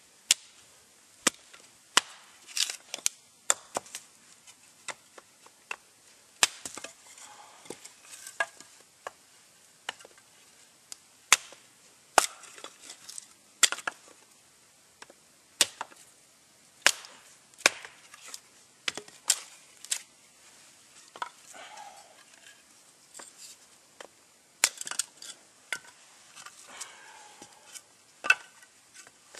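Small, light axe chopping and splitting wood into kindling: sharp, separate blade strikes into the wood at an uneven pace, sometimes alone and sometimes several in quick succession.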